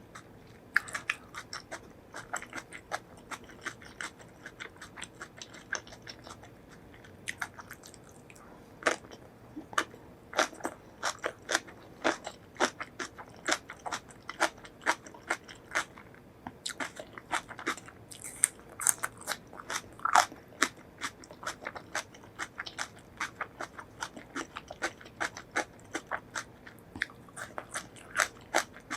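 Close-miked eating of crunchy food: a person biting and chewing with many sharp, irregular crunches and wet mouth clicks, a little sparser for a few seconds near the start.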